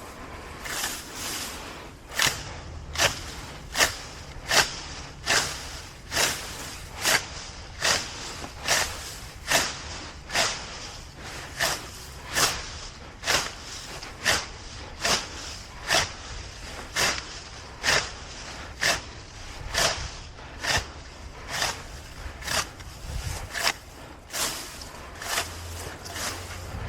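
Grass being torn up by hand in a steady working rhythm: a short, sharp rip or swish roughly every three-quarters of a second.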